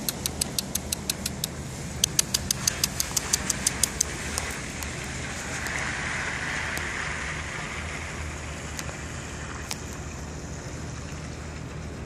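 Car engine idling steadily, with two quick runs of sharp high ticks, about six a second, in the first four seconds. A rush of noise swells and fades around the middle.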